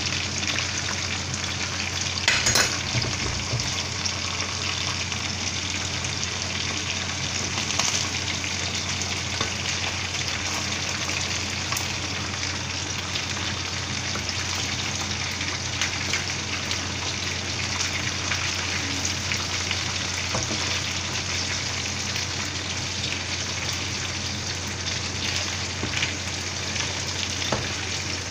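Chicken mid wings and chopped garlic deep-frying in hot oil in a wok: a steady crackling sizzle. A spatula knocks against the wok a few times, loudest about two and a half seconds in.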